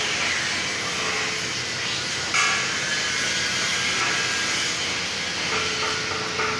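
MIG welding arc running steadily with a continuous hiss, laying a pass on a thick multi-pass weld in a steel beam. A brief louder pop a little over two seconds in.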